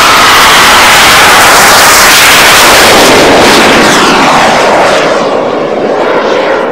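RC jet's model gas-turbine engine at full power for takeoff and climb-out: a loud steady rush with a high whine. Its pitch slides down as the jet passes and climbs away, and it fades somewhat in the last second or two.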